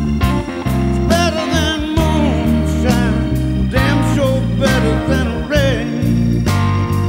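Soundtrack music: a blues-rock song with a steady beat, in an instrumental stretch between sung lines.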